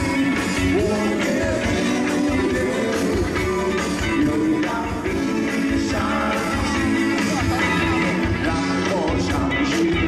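Live band playing a light, upbeat pop song with a cha-cha feel, with singing over drums, bass and guitar.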